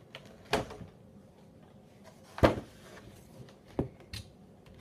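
Cardboard collection box and its clear plastic packaging being handled and unpacked: a few separate knocks and clunks, the loudest about halfway.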